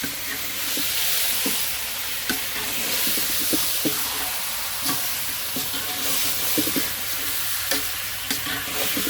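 Rooster meat sizzling in hot oil and curry seasoning in a pot, stirred with a spoon that scrapes and knocks now and then. The meat is being bunjayed: fried down to burn off the rank water it releases.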